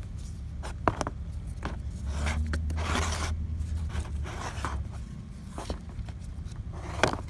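A Detroit DD15 crankcase breather housing handled with gloved hands and turned over on cardboard: repeated short scraping and rustling strokes, with a sharp knock about a second in and another near the end. A low steady rumble comes in about two seconds in and lasts about two seconds.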